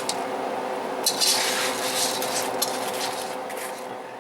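A utensil clinking and scraping in a pan as fried chicken pieces are stirred into a thick simmering sauce, over a steady sizzling hiss; the sound fades down near the end.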